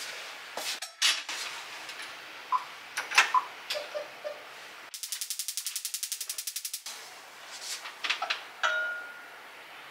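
Gas hob's spark igniter clicking in a rapid, even run for about two seconds midway as the burner is lit. Before and after it come light knocks and clinks of an enamel saucepan being handled on the stove grate, a few of them ringing briefly.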